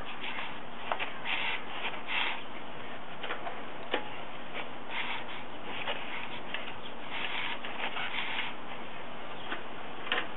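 Electric arc welding on a steel axle shaft: a steady crackling hiss with scattered sharp clicks and brighter stretches as the bead runs.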